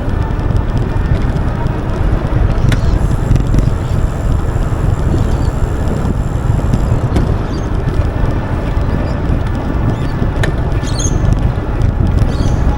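Wind buffeting the microphone and rolling noise from an Aventon Level 2 e-bike being ridden, with a few sharp single clicks several seconds apart. The clicks are the intermittent pedaling click the rider cannot place, which comes whether or not he presses on the pedals.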